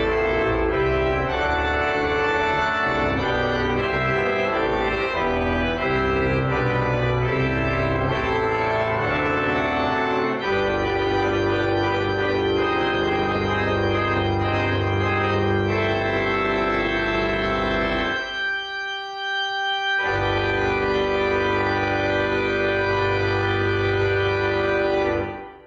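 Church organ playing the closing voluntary: full sustained chords over deep bass pedal notes. Near the end the bass drops out for about two seconds, then a final held chord that stops suddenly.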